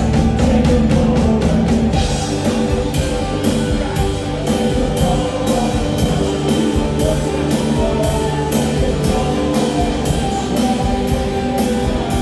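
Live rock band playing loud through a PA: electric guitars and a drum kit, with a steady beat of cymbal hits from about two seconds in.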